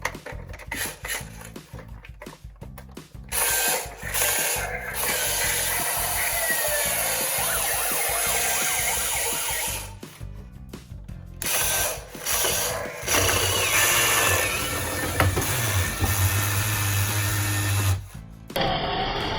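Toy cars whirring and rattling as they run, in two long stretches of several seconds each, over light background music.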